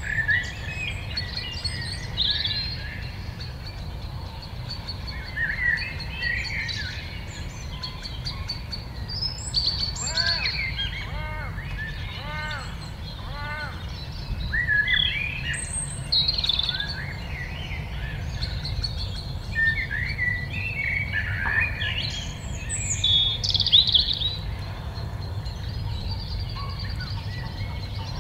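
Several songbirds singing and calling at once in an evening chorus, with short chirps and warbles throughout. Around the middle comes a run of about five lower, arched calls, and a steady low rumble sits underneath.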